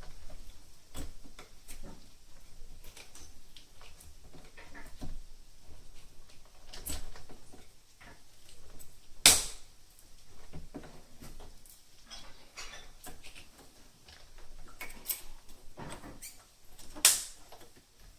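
Scattered clicks, taps and knocks of hand work on an interior door's panel, with two sharp, louder knocks, one about halfway through and one near the end.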